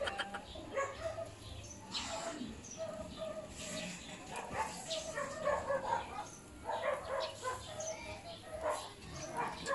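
Repeated short animal calls with brief gaps between them.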